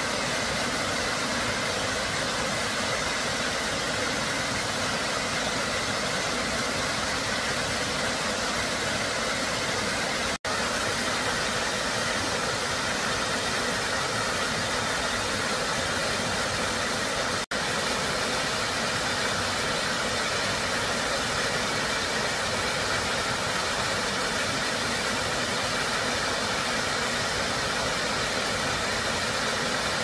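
Small waterfall cascading over boulders into a stream pool: a steady rushing of water. It is broken by two very brief gaps, about ten and seventeen seconds in.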